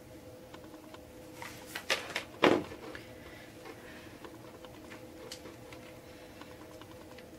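Handling sounds from hot-glue crafting on a wooden board: a few sharp knocks and taps, the loudest about two and a half seconds in, then faint light ticks and rubbing as twine is pressed onto the wood, over a faint steady hum.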